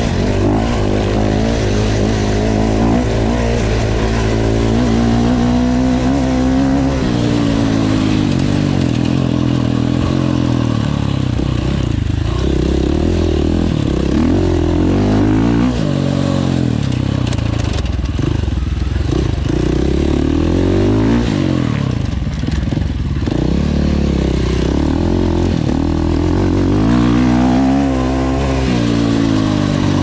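Enduro motorcycle engine ridden hard, its pitch climbing and dropping again and again as the throttle is opened and shut.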